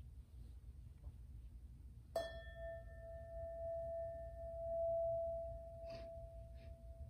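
A singing bowl struck once about two seconds in, ringing with a clear, steady tone and a few higher overtones. The ring swells slightly before slowly fading, and it is still sounding at the end.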